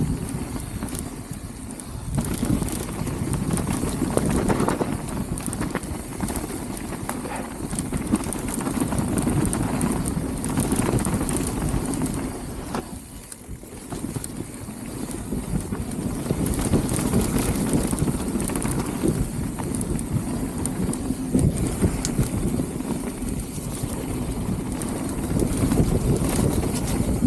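Mountain bike riding downhill on a muddy dirt trail: tyres rolling and the bike rattling and knocking over bumps and roots, with a brief lull about halfway through.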